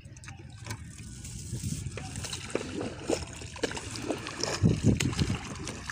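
Wet gill net being hauled hand over hand into a small outrigger boat: water splashing and dripping off the mesh, with many short knocks and rustles as the net comes over the side.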